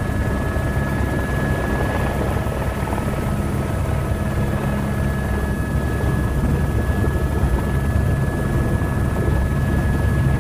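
Airbus AS350 A-Star helicopter heard from inside the cockpit: turbine and rotor running steadily, a low drone with a thin, steady high whine over it.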